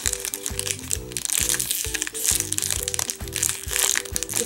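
Clear plastic wrapper around a foam squishy crinkling as it is handled in the hands, over background music with a steady beat.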